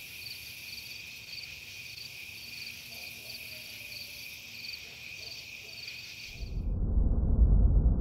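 Crickets chirring: a steady high trill with a faster pulsing note above it. About six seconds in, a loud low rumble swells up and the chirring stops.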